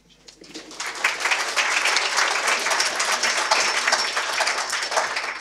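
Audience applauding with many hands. It builds up over the first second, then carries on steadily.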